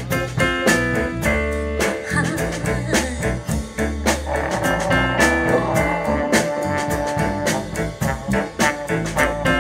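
Live blues band playing an instrumental intro: drums keeping a steady beat under electric bass and piano, with a trombone line coming in about four seconds in.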